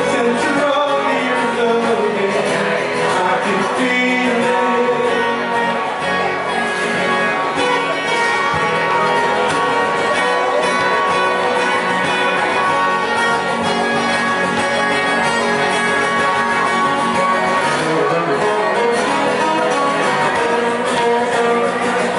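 Live rock band playing, with guitars and some singing, a steady full sound with no pauses.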